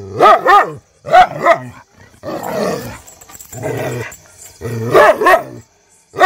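Tan-and-white street dog barking in quick pairs of sharp barks, with a low growl between the pairs: alarm barking at unfamiliar people.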